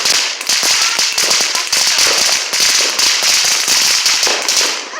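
Ground fountain firework spraying sparks: a loud, steady hiss thick with fast crackling, which dies away near the end.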